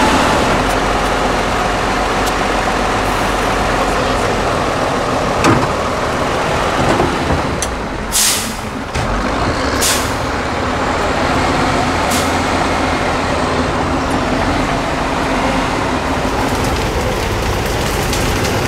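Tatra 813 8x8 truck's diesel engine running steadily as it crawls through mud, with two short hisses of air about eight and ten seconds in.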